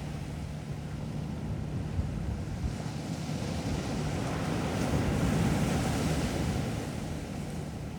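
Sea waves washing onto a beach, with a low rumble that swells up through the middle and fades again near the end.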